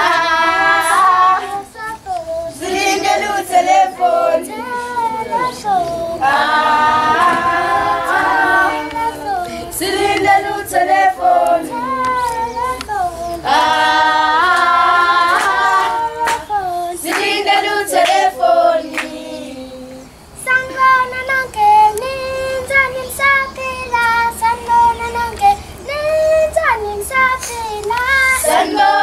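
Children's choir singing a melody in sung phrases, the voices dropping out briefly about two-thirds of the way through.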